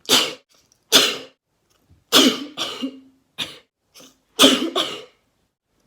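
A young woman's fit of sneezes and coughs: about seven short, sharp bursts in quick succession, some paired. It is brought on by cotton swabs with oxolinic ointment twisted in her nose.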